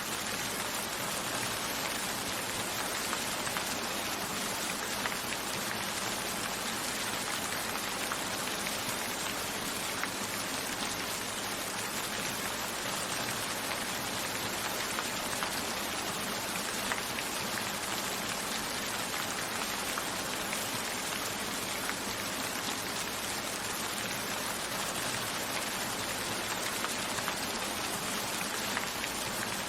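Steady rain falling, an even hiss with fine patter of individual drops throughout.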